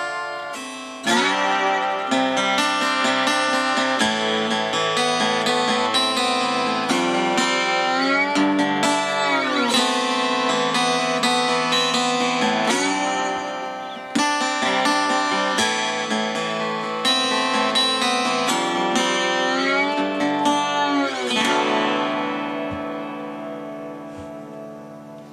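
Acoustic guitar played flat on the lap with a slide bar: strummed chords ringing on, with the slide gliding the pitch up and back down twice. Near the end a last chord is left to ring out and fade.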